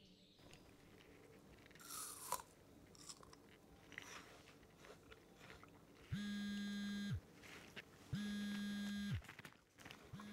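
Smartphone vibrating with an incoming call: three buzzes, each about a second long and a second apart, starting about six seconds in, after a few faint small rustles.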